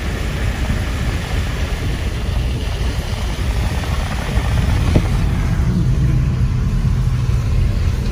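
Car driving along, steady engine and road rumble. A low hum gets stronger a little past the middle.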